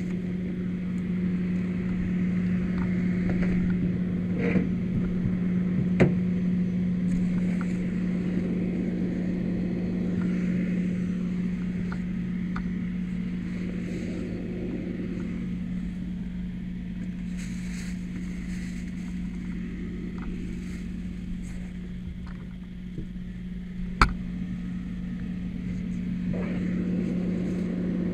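An engine running steadily, a constant low drone with a humming tone. A sharp knock comes about six seconds in and a louder one near the end.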